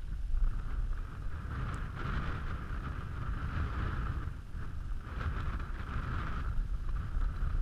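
Wind buffeting an action camera's microphone: an uneven low rumble, with a rushing hiss that swells and fades twice.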